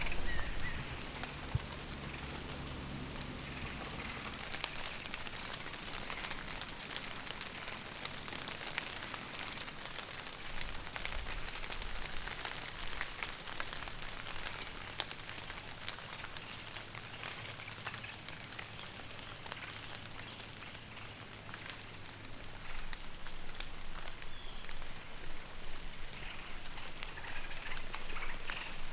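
Light rain pattering: many small drop ticks over a steady soft hiss.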